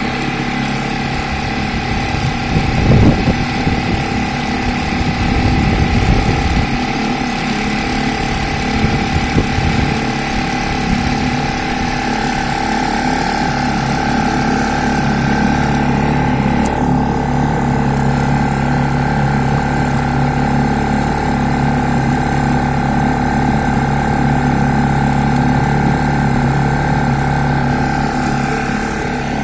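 Fisher 2.5 hp outboard motor running steadily at cruising speed during its break-in. A couple of brief rushes of noise come about three and six seconds in.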